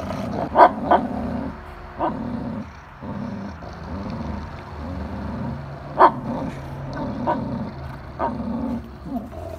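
A German shepherd and a pit bull growling steadily as they tug on a toy between them, with a few short, sharp barks breaking in, the loudest about half a second in and about six seconds in.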